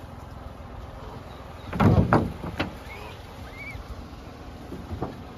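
A few dull thumps on a car's body, three close together about two seconds in and one more near the end, as grey langurs move about on its roof, over a steady outdoor hiss with two faint bird chirps.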